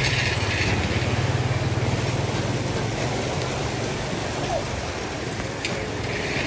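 A small engine running steadily with an even, low drone.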